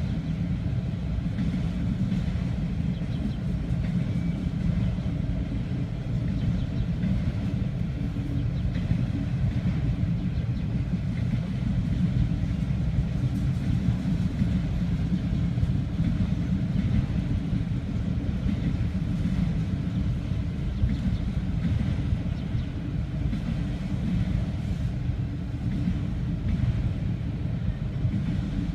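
Autorack freight train rolling past in a steady, low rumble that neither builds nor fades.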